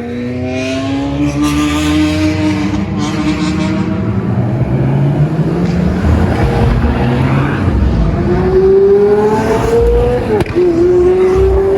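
High-performance car engines on a race track, passing and accelerating under load. An engine note climbs through the first few seconds. Another climbs from about eight seconds in, drops sharply just after ten seconds as it shifts up a gear, then climbs again.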